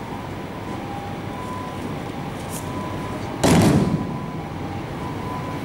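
A judoka thrown onto tatami mats, landing in a breakfall: one loud slap and thud about three and a half seconds in, over a steady background hum.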